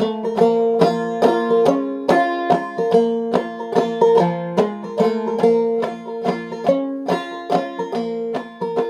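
Five-string banjo played clawhammer style in sawmill tuning, capoed at the third fret: an instrumental passage in 3/4 time, a steady run of plucked notes over open strings ringing underneath.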